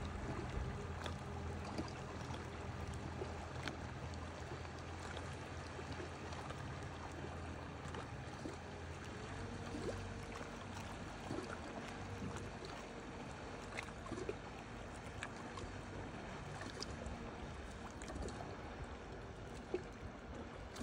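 Outboard motor of a small rigid inflatable boat running at a distance, a low steady drone that fades away about halfway through as the boat moves off, over close water lapping with small splashes.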